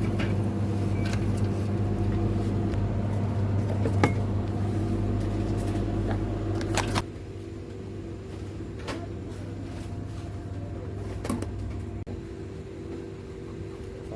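A steady electrical appliance hum that cuts off suddenly about seven seconds in, with a few light clicks and knocks scattered through.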